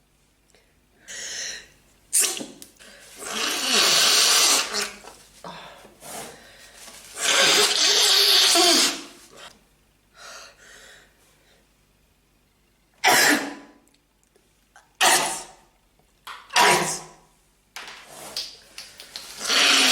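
A person sneezing over and over in a sneezing fit. Two long, loud sneezes come in the first half, then three short, sharp ones about a second and a half apart, with quiet breaths between them.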